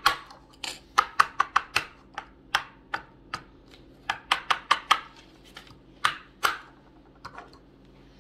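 Small plastic Lego pieces clicking and clattering as they are handled and sorted, in irregular quick runs of sharp clicks.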